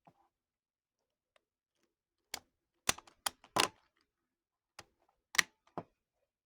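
Battery cells and spacers being handled and set against each other, making a run of about eight sharp clicks and knocks that start a couple of seconds in.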